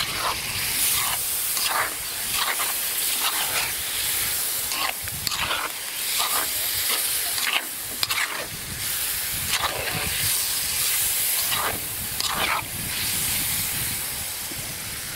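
Meat frying in hot oil in a kazan, sizzling and spattering steadily, while a metal spoon stirs and scrapes the pieces against the pot about once a second.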